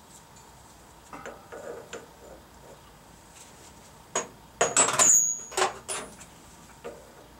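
Metal tools and parts clinking and clattering as they are handled and set down: a few light clinks about a second in, then a louder run of sharp metallic knocks with a brief ringing tone in the middle, fading out with a last clink near the end.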